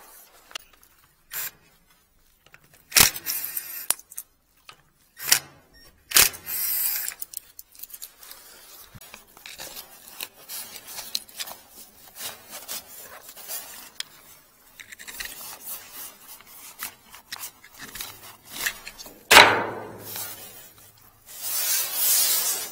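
Handling noise of a worker moving tools and gear around drain pipes: scattered clicks, knocks and scrapes, with the loudest knock about three-quarters of the way through and a burst of rustling near the end.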